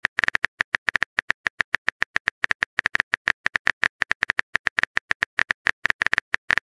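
Phone keyboard key-tap sound effect, a rapid even run of light clicks, about seven a second, as a text message is typed out letter by letter.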